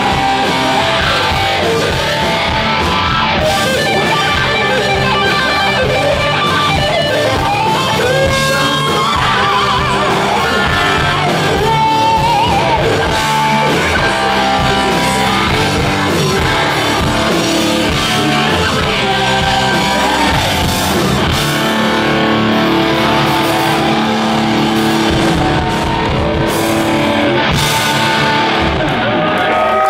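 A live heavy rock band playing loudly, with electric guitars and drums, heard from within the audience.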